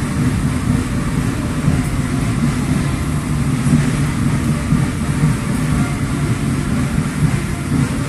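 Heavy military vehicles driving past, their engines giving a steady, loud low rumble.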